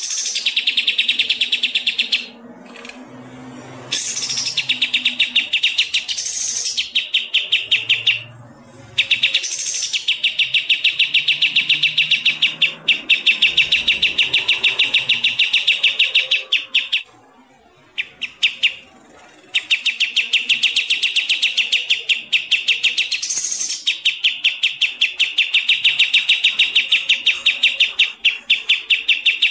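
Songbird song recorded for a masteran, a track played to teach caged birds new songs: long runs of fast, high chirps repeated at an even pace, broken by a few short pauses.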